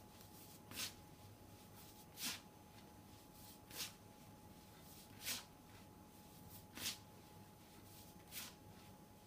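Fingertips rubbing butter into flour in a plastic mixing bowl: the rubbing-in stage of scone dough, heard as six rustling swishes of flour crumbs, about one every second and a half.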